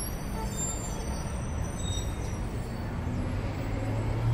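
Road traffic noise, a steady rumble of passing vehicles with engine hum. It swells as a vehicle passes near the end.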